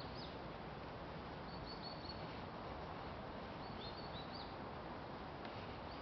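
A stream running steadily, with a small bird's short, high chirps coming in quick rising groups about every two seconds.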